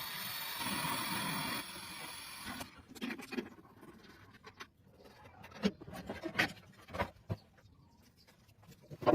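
A steady hiss for about the first two and a half seconds, then cuts off, followed by scattered sharp clicks and knocks.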